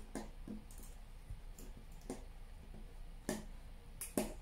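Needle-nose pliers twisting thin wire together, giving a scattered series of small metallic clicks and ticks, with two sharper clicks close together near the end.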